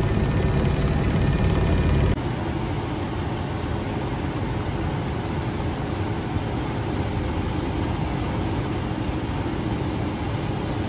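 Steady engine drone of an aircraft, heard from on board, dense and heaviest in the low rumble. About two seconds in it drops in level and changes character at a cut in the footage.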